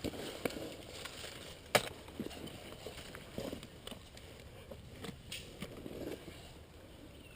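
Footsteps crunching through dry leaves and brush, with one sharp crack about two seconds in and a few fainter clicks later.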